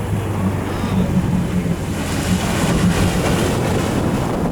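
A watercraft engine idling steadily at a low pitch, with wind buffeting the microphone and surf washing around it; the wash of water swells louder in the middle.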